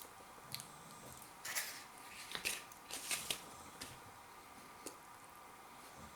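Chewing a king prawn in crisp bubble-tempura batter: a few short crunches between about one and a half and three and a half seconds in.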